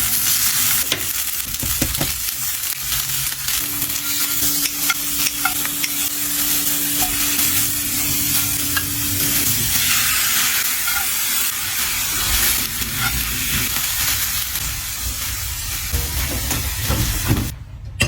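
Food sizzling in a hot pan while it is stirred and tossed, with scattered clicks of a utensil against the pan.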